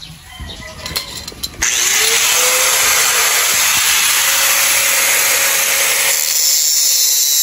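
Handheld angle grinder switched on about a second and a half in, its motor whine rising as it spins up, then running steadily as the disc cuts off a small piece. A few handling clicks come before it starts.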